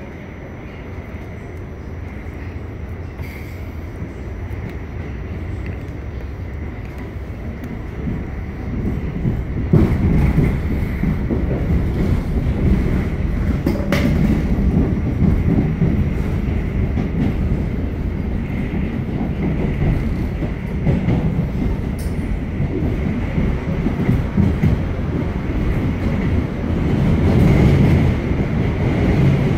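R46 subway car running on the rails, heard from aboard: a steady rumble of wheels and running gear with a faint steady whine above it, growing louder about ten seconds in.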